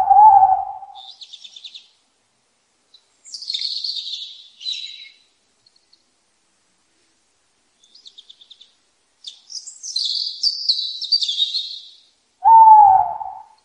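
Wild birds calling: a short, low hooting call at the start and again near the end. Between them come several bursts of high chirping and quick trills.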